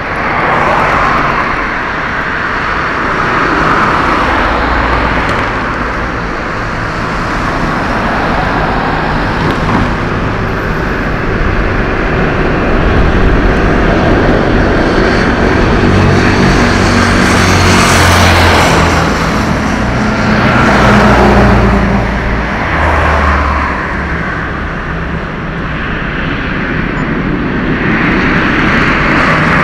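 Jet engine noise from a departing Boeing 747-400F freighter: a steady, loud rumble with slow swells, heaviest about two-thirds of the way through.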